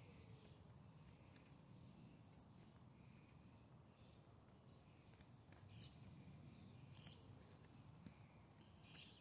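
Quiet outdoor ambience with a bird's short, high chirps every two seconds or so, each dropping slightly in pitch; the one about halfway through is the loudest.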